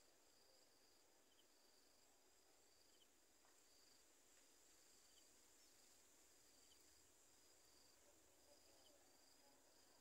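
Near silence: a faint, steady high-pitched insect trilling, with a few faint short chirps about once a second.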